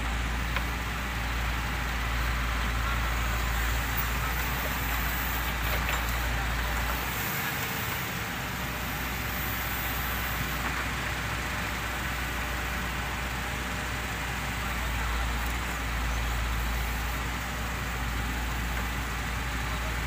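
Terex backhoe loader's diesel engine running steadily under load while its backhoe digs soil, the low rumble dipping briefly about seven seconds in.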